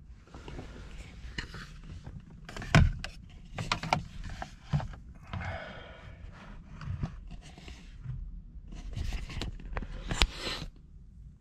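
Handling noises inside a car cabin: rustling and shuffling as a handheld tuner and camera are moved about, with several knocks and clicks. The loudest are a thump about three seconds in and a sharp click near the end.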